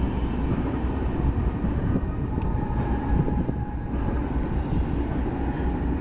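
Freight train running on the rails: a steady low rumble of diesel locomotive and rolling cars, with no horn sounding.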